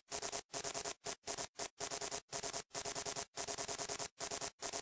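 Typing-style text-reveal sound effect: rapid hissy ticking, about a dozen ticks a second, in short runs with brief silent gaps between them.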